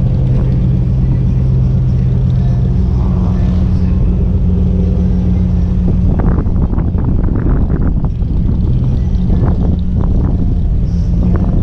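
Jeep Grand Cherokee SRT8's Hemi V8 idling steadily with a deep rumble, heard from a camera mounted on the car.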